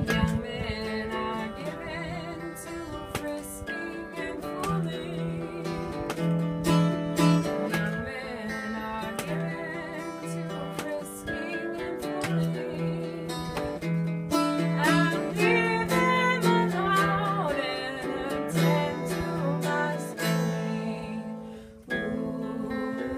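Acoustic guitar strummed and picked in a steady folk accompaniment, with a voice singing along for a few seconds midway.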